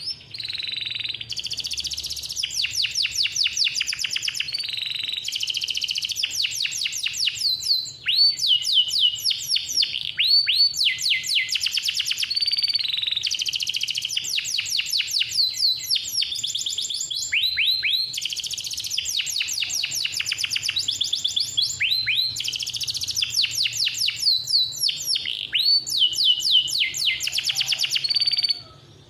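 Male domestic canary singing hard in one long song of fast rolling trills and rapid repeated notes, switching from one trill to the next every second or two. It breaks off briefly about eight seconds in and stops just before the end.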